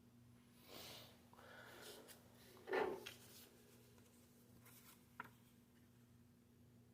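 Faint handling noises of plastic miniatures and game pieces: soft rubbing, a light knock a little under three seconds in and a small click about five seconds in, over a steady low hum.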